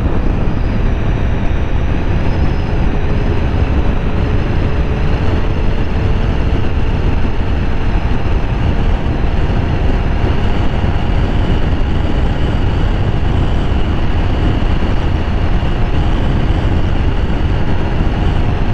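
Honda PCX 160 scooter at full throttle at highway speed: heavy wind rush on the microphone over the single-cylinder engine's faint steady drone, its whine rising slowly in pitch as the scooter gains speed.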